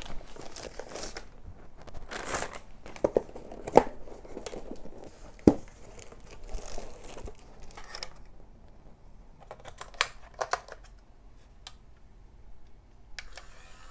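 Plastic packaging crinkling and tearing as a parcel is unpacked, with cardboard box handling and a few sharp knocks about four and five and a half seconds in. After about eight seconds the handling goes quieter, with a few light clicks.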